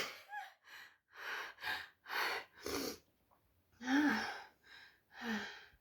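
A person breathing in short, noisy gasps right after a hard sneeze, about eight breaths with pauses between, the last two with a little voice in them.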